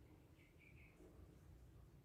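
Near silence: faint room tone with three short, faint high chirps in quick succession about half a second in.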